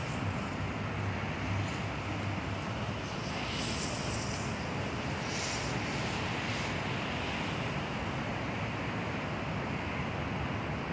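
Steady outdoor noise: wind on the microphone over a distant low rumble of traffic.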